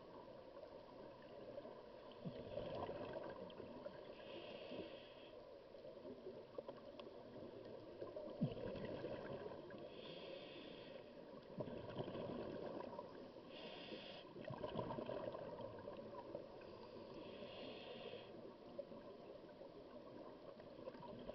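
Scuba regulator breathing heard underwater: a short hiss of inhalation followed by a rumbling gush of exhaled bubbles, repeating every few seconds.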